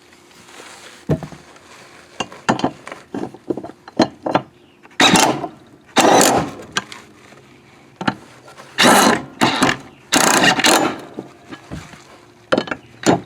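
Hand-tool work on a lawn tractor's mower blades: several short bursts of mechanical rattling and scraping, about half a second to a second each, with sharp clicks and clanks between.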